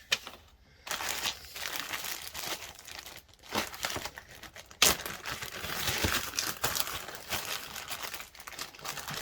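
Packing material being crinkled and pulled apart as a mailed package of tools is unwrapped, with a sharp knock about five seconds in.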